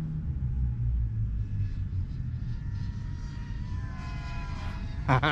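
DJI FPV drone's propellers whining over a steady low rumble, the pitch climbing about four seconds in as the throttle comes up.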